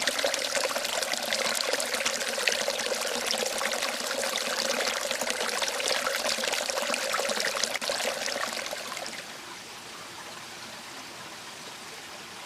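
Creek water running and splashing close by, loud and steady, then dropping to a fainter steady rush about nine seconds in.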